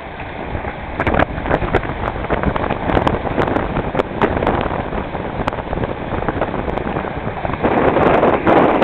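Wind buffeting the microphone and water rushing and splashing along the hull of a sailboat moving fast, with frequent short crackles. It grows louder near the end as spray bursts up beside the hull.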